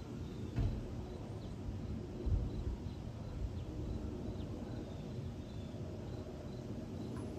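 Steady distant low rumble of an Airbus A220-300's Pratt & Whitney PW1500G geared turbofans as the jet climbs out overhead, with faint bird chirps scattered through. Two brief low thumps come about half a second and two seconds in.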